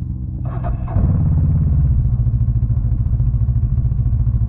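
A Ski-Doo 600 ACE snowmobile's three-cylinder four-stroke engine starting about a second in and settling into a steady, evenly pulsing idle, over another engine already idling. It is the crashed sled being tried for the first time after field repairs.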